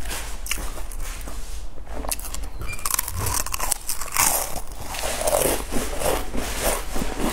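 Potato crisps being bitten and chewed close to a clip-on microphone: sharp crunches, then rapid crunchy chewing in the second half.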